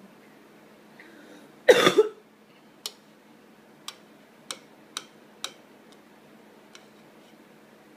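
A metal spoon clicking against a bowl of cereal as a toddler scoops: about six sharp, separate clicks between three and seven seconds in. A short cough about two seconds in is the loudest sound.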